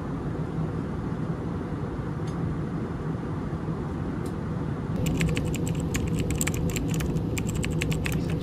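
Steady low drone of cabin noise inside an Airbus A320neo airliner. About five seconds in it grows a little louder, and a run of quick, light clicks and rattles joins it.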